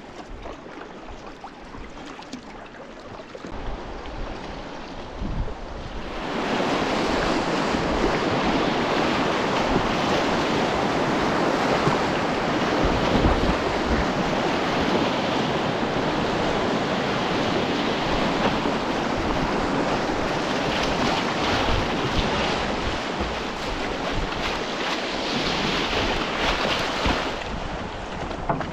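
Whitewater of a river rapid rushing around a kayak, a steady wash that turns much louder about six seconds in as the boat enters the rapid.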